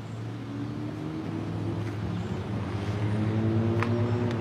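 Two CN diesel-electric freight locomotives approaching, their engines a low steady drone that grows louder. A horn sounds over it from about half a second in, its chord held and then cut off near the end.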